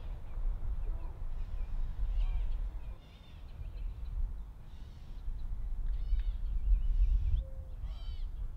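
A bird calling over and over outdoors, short calls every second or two that grow louder near the end, over a steady low wind rumble on the microphone.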